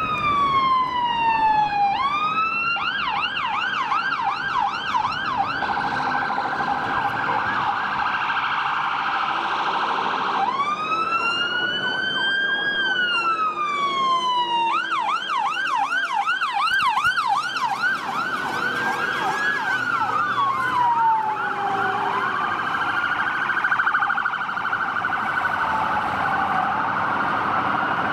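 Fire engines' electronic sirens on an emergency run, switching between a slow rising-and-falling wail, a fast yelp of about three sweeps a second and a rapid warble. In the later part a fainter wail overlaps, as more than one siren sounds at once.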